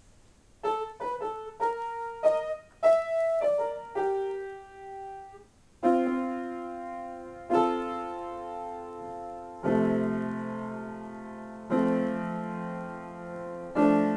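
Grand piano played solo. It opens with a quick run of single notes and a held note, then plays full chords struck about every two seconds, each left to ring and fade.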